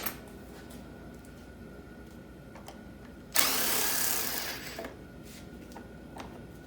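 A power tool runs once for about a second and a half, starting suddenly and trailing off, as an 8 mm intake manifold bolt is backed out of a 5.3 LS V8. A few light clicks of tool on metal come before it.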